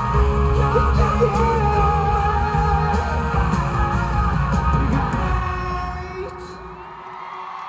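Live rock band with electric guitar and a male singer holding wavering notes, playing out the end of a song. The music dies away about six seconds in, leaving the hall's ring and a low steady hum.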